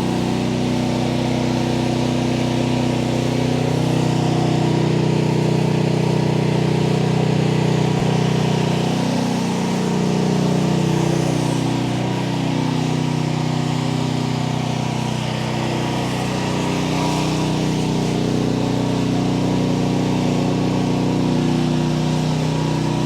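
Gas-engine pressure washer running steadily under load while its pump drives the downstream-injected bleach solution out through the spray wand.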